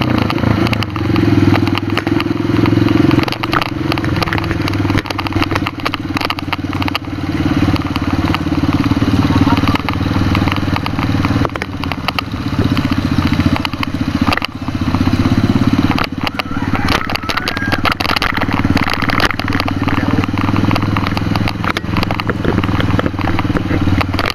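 Motorcycle engine running steadily while riding along, with frequent crackles over it.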